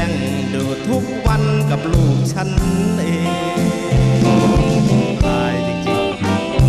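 Live band music with bass, guitar and a steady drum beat: an instrumental stretch between sung lines of a comic song.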